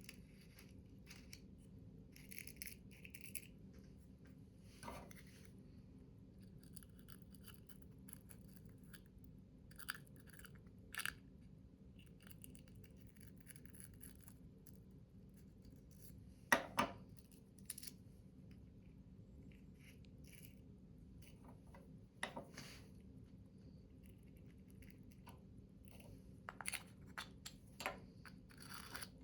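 Faint scattered taps, scrapes and rustles of paper and small hand tools being worked, as in cutting and folding paper to make small cartridge boxes, over a low steady hum. A couple of sharper knocks stand out a little past halfway.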